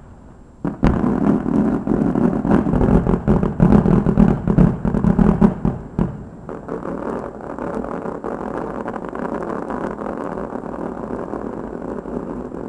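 Fireworks: a rapid, crackling run of many sharp bangs for about five seconds, then a steadier, quieter rushing noise with a few faint pops.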